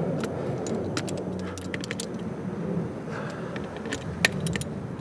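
Socket ratchet clicking in short irregular runs, with small metal clinks, as the bolts holding the two halves of a snowblower auger gearbox are worked loose; one sharper click stands out about four seconds in.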